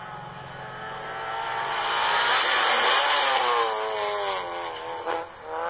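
Peugeot 106 competition car's engine running hard at high revs as the car approaches, passes close by and pulls away; the sound swells to its loudest about halfway through and falls in pitch as it passes. Near the end the engine note dips briefly and climbs again.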